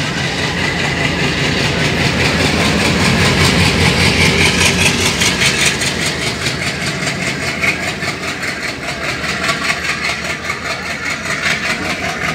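A WDM-3A diesel-electric locomotive's ALCO V16 engine running as the locomotive passes close alongside, loudest as it draws level about five seconds in, then easing a little as the coaches roll past.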